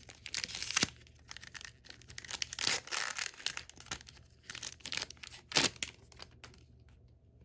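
Wrapper of a pack of 2021 Score football cards being torn open and crinkled: a run of ripping and rustling for about six seconds, with the sharpest rips about a second in and near the end.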